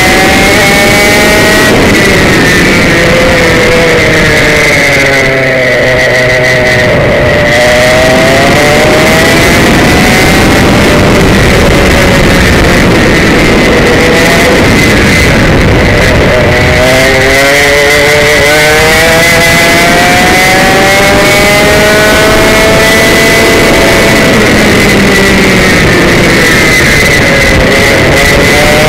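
Komet K77 two-stroke kart engine at racing revs, heard loud from the driver's seat. Its pitch sags as the throttle eases and then climbs sharply again when it opens, three times: around six seconds in, around seventeen seconds in, and near the end.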